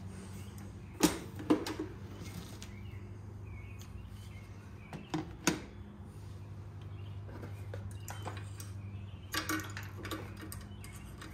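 Sharp plastic and metal clacks and knocks in three brief clusters as a scooter seat is unlatched and raised and a small tire inflator is set into the under-seat storage bin, over a steady low hum.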